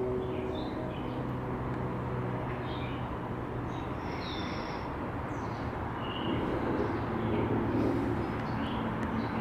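Outdoor garden ambience: short bird chirps here and there over a steady low background rumble, which swells for a couple of seconds near the end. A sustained music drone fades out in the first two seconds.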